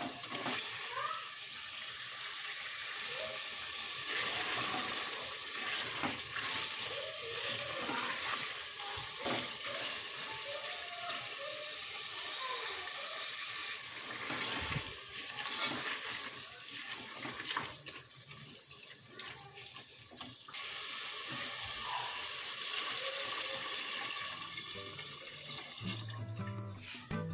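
Mutton pieces sizzling in oil in a pressure cooker as a silicone spatula stirs and scrapes them against the pot. Near the end, water is poured in and splashes into the pot.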